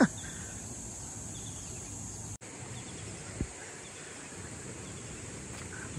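Quiet outdoor ambience dominated by a steady, high-pitched drone of insects, with a momentary gap about two and a half seconds in.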